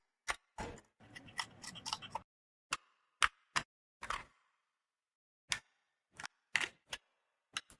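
A run of sharp, short clicks and knocks, with a quick rattling cluster in the first two seconds and then single clicks about every half second, dead silent in between.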